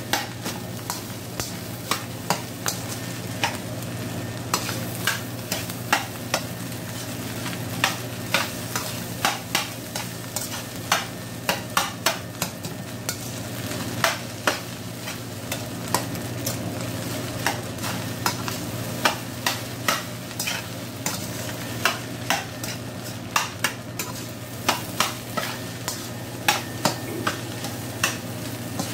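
A metal spatula scrapes and clanks against a stainless-steel wok as fried rice is stirred continuously. Sharp scrapes come irregularly, often one or two a second, over a steady sizzle and a low steady hum.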